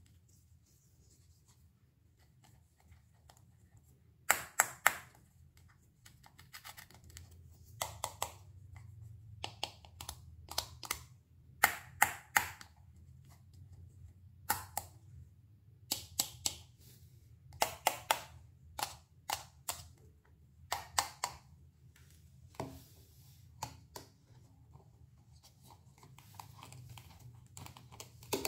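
Knife cutting fresh produce on a cutting board: crisp, sharp knocks of the blade in quick clusters of two to four, starting about four seconds in.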